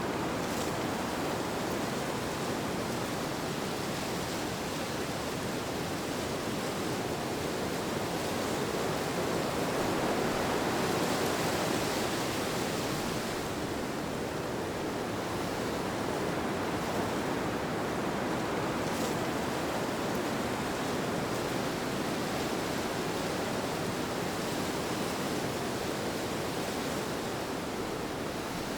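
Steady rushing wind noise, swelling slightly around the middle and easing again.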